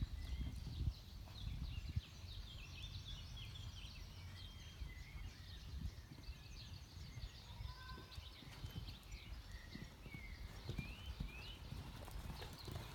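Small birds chirping throughout over a low rumble, with the soft thuds of a pony's hooves on the sand arena, plainer near the start and again near the end as the pony comes closer.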